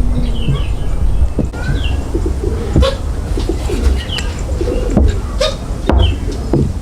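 Birds calling, with low gliding calls and short higher chirps. Several sharp knocks or taps sound over a steady low rumble.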